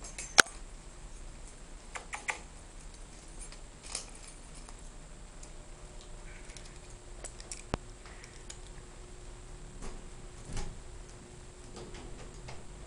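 Scattered light clicks and taps as a Shih Tzu puppy and its leash move about on a tiled floor, with one sharp click about half a second in.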